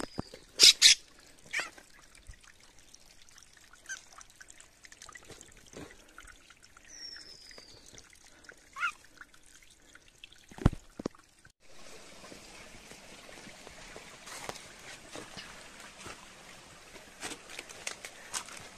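Wild birds at a hillside bathing pool: two short whistled calls gliding down in pitch and a few sharp clicks. A little past the middle a steady trickle of water starts suddenly.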